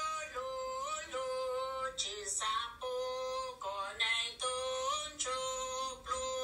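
A single high-pitched voice singing long held notes that slide and step between pitches, phrase after phrase, with no instrument heard.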